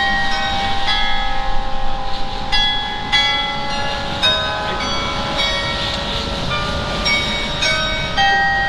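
Carillon bells playing a piece: tuned bronze bells struck in quick succession and in chords, each note ringing on under the next.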